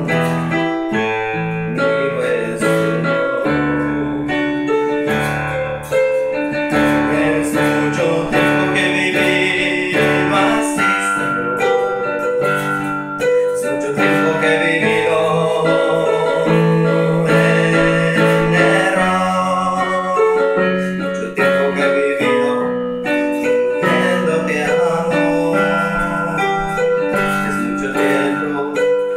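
Yamaha electronic keyboard playing a slow song, with held bass notes and chords that change every couple of seconds beneath a melody.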